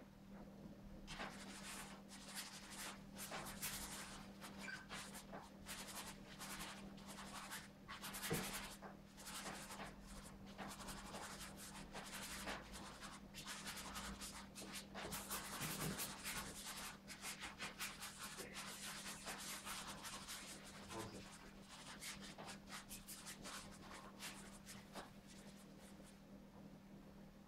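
Paintbrush strokes scratching and rubbing across a stretched canvas, many short strokes one after another, over a faint steady hum.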